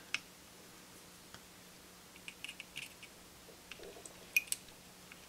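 Scattered small clicks and scrapes of a multimeter test-lead clip being handled and fastened onto terminals of a circuit board, the sharpest click about four and a half seconds in.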